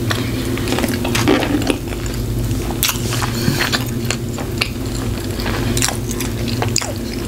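Close-miked chewing of fast food, with many short wet clicks and mouth smacks. A steady low hum runs underneath.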